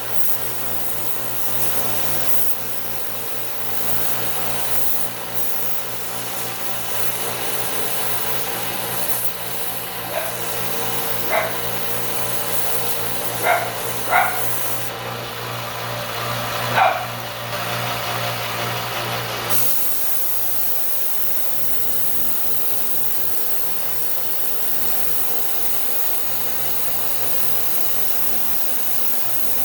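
A 1x30 belt sander runs steadily while a screwdriver handle is sanded and blended on it. Its sound shifts about two-thirds of the way through. A dog barks about five times, short and sharp, around the middle.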